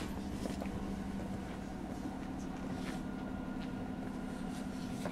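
Cabin sound inside a JR Kyushu 103-1500 series electric train car: a steady low hum with a fainter high steady tone and a few faint ticks, with no rising or falling motor pitch.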